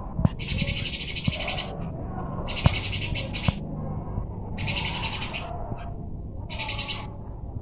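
Eurasian tree sparrows chattering in a fight: four bursts of fast, harsh chirping, each about a second long, with short gaps between them.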